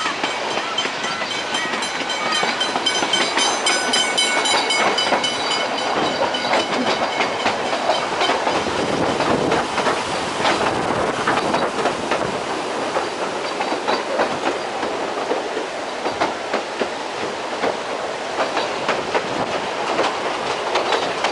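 Puffing Billy narrow-gauge steam train rolling along, heard from on board a carriage: steady running noise with wheels clicking over the rail joints. A thin high squeal sounds through the first six seconds or so, typical of wheel flanges on a curve.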